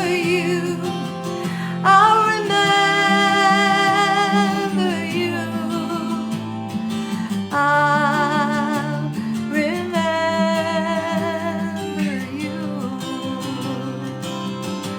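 Folk ballad: a woman's voice holding long notes with vibrato over acoustic guitar accompaniment.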